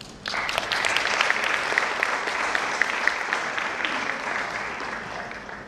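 Audience applauding, a dense patter of many hands clapping that starts suddenly and dies away over the last second or so.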